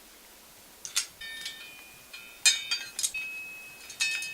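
Small metal parts clinking: a screw and washers knocking against the stabilizer's metal plate, a series of light clinks, several of them ringing briefly.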